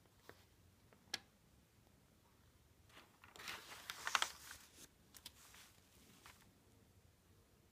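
Newspaper page being turned: a brief rustle and crinkle of newsprint about three and a half seconds in, with a few faint ticks of paper handling before and after.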